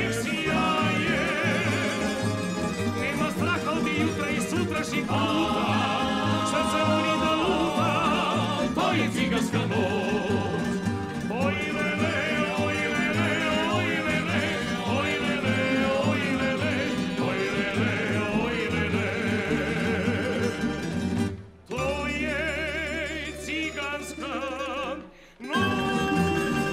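A tamburica ensemble plays a lively instrumental passage, the melody over an evenly pulsing bass. Near the end the band breaks off sharply twice, with a low held bass note in the gap, then comes back in on a sustained chord.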